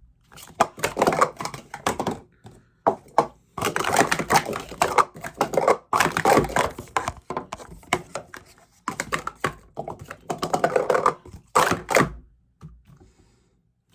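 Speed Stacks sport-stacking plastic cups rapidly stacked up and down through a timed cycle sequence: fast runs of light plastic clatter with brief breaks between, stopping about twelve seconds in.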